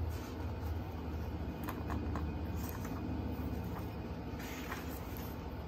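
Steady low background hum, with a few light taps around two seconds in and a brief rustle of a hardcover picture book's pages being handled about four and a half seconds in.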